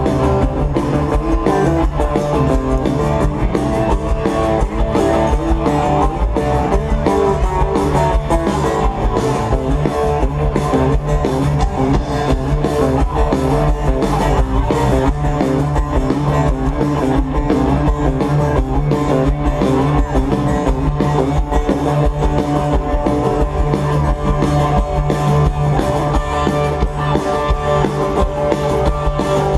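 Jam band playing live through a large outdoor PA, heard from within the crowd: electric guitar and drum kit over a steady beat.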